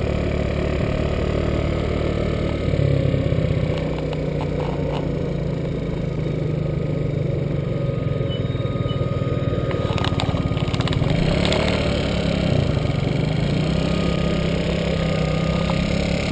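Small motor scooter engine running while riding, its pitch shifting up and down a few times with the throttle.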